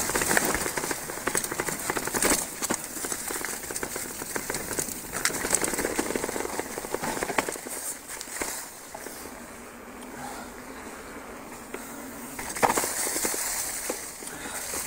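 Mountain-bike tyres rolling fast over dry fallen leaves, a dense crackling with many sharp clicks and rattles from the bike. It goes quieter and smoother for a few seconds past the middle, then crackles again, with a sharp knock near the end.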